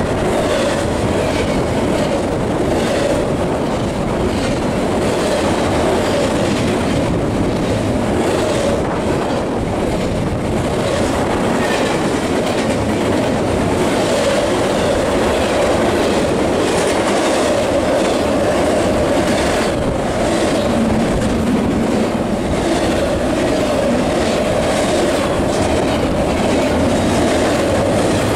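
Double-stack intermodal freight train's well cars rolling past close by: a loud, steady rumble of steel wheels on rail, with repeated clicks as wheel sets cross rail joints and a steady tone running under it.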